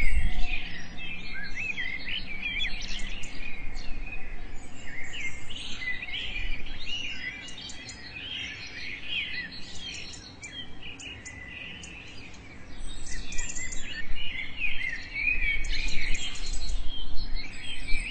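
Many small birds chirping at once, a dense chorus of short rising and falling chirps. It grows quieter in the middle and fuller again near the end.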